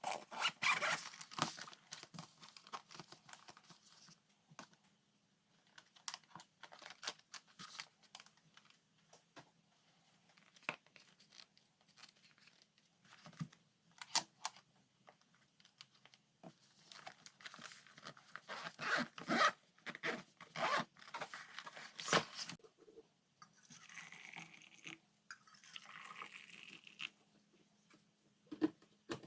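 Hands preparing and packing lunchbox food: scattered clicks and knocks of food and containers being handled and set down, with bursts of rustling and tearing, over a faint steady hum.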